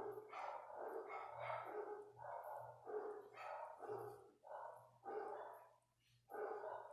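A dog barking repeatedly in the background, about two barks a second, with a short pause near the end.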